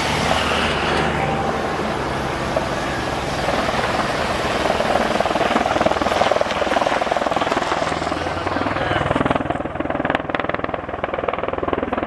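Bell Boeing MV-22B Osprey tiltrotor's proprotors and twin turboshaft engines running in a steady, loud drone. About three-quarters of the way through, the hiss fades and a fast, even rotor chop comes forward.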